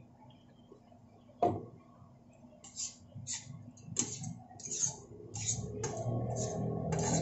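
Metal spoon and fork scraping and clinking against a nonstick frying pan while tossing fried pork and tofu, in short strokes about twice a second, after a single sharp knock about a second and a half in. Background music fades in over the last couple of seconds.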